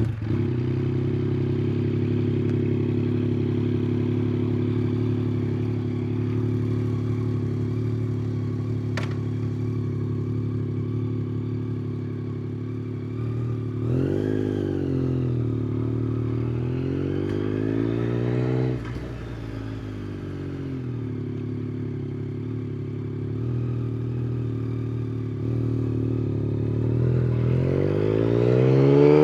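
Yamaha MT-09's three-cylinder engine through an Akrapovic exhaust, idling steadily, then blipped twice, about halfway in and again a few seconds later. Near the end the revs climb steadily.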